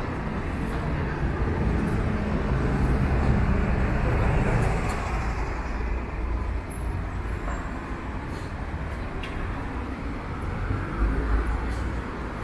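City street traffic: a motor vehicle's low engine rumble swells over the first few seconds and fades away about five seconds in, with another brief rumble near the end, over a steady hum of street noise.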